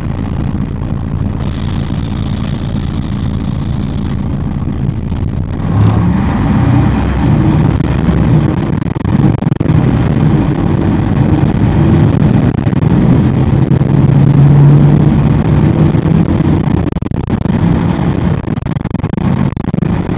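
City bus engine heard from on board, running steadily, then growing louder about six seconds in as it accelerates, its pitch rising and falling.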